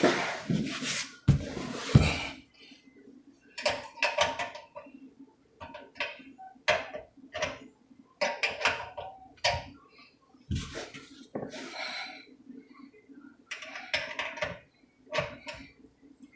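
Irregular metal clanks and scrapes as a disposal wrench, fitted into the side of a garbage disposal's mounting ring, is worked to turn the ring loose; the ring is a little tight.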